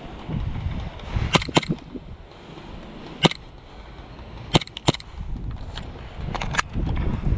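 Airsoft guns firing scattered single shots, about eight sharp cracks with several in quick pairs. Wind rumbles on the microphone throughout.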